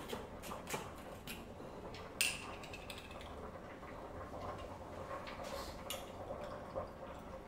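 Quiet, scattered clicks and clinks of bottles and bar tools being handled while shots are measured out for a cocktail, with a sharper clink about two seconds in.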